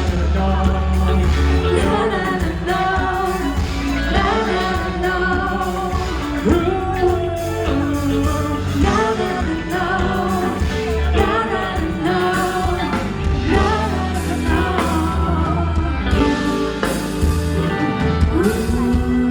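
Pop song sung live: a voice singing a melody over backing music with a steady low bass.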